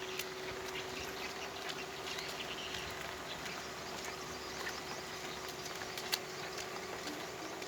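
Rain falling steadily, with many small drop ticks scattered through it and a faint steady tone underneath.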